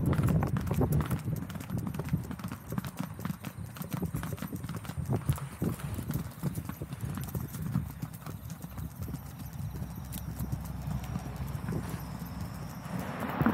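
Hooves of ridden horses clip-clopping on a dirt track, a steady run of hoofbeats. Near the end a rushing noise rises as a vehicle comes along the road beside them.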